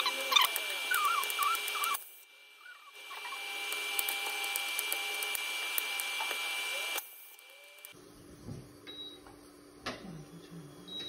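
Kitchen knife chopping bitter gourd on a wooden cutting board: quick sharp taps of the blade on the board over a steady high whine. The chopping stops briefly near 2 s and again around 7 s, after which only a few faint taps remain.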